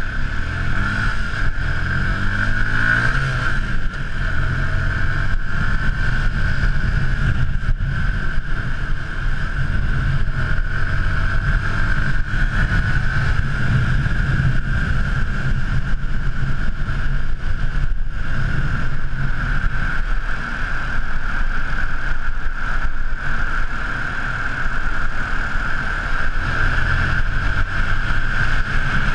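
Yamaha YZF-R125's single-cylinder 125 cc four-stroke engine accelerating, its pitch rising in the first few seconds and again near the end, then running steadily at road speed under a constant rumble of riding wind on the microphone.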